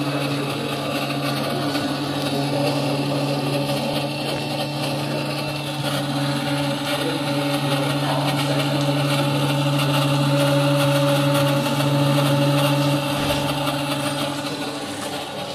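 CNC milling machine running with a steady mechanical hum, easing a little near the end.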